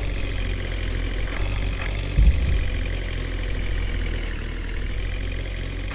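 Heavy diesel engine running steadily, with a brief low thump about two seconds in.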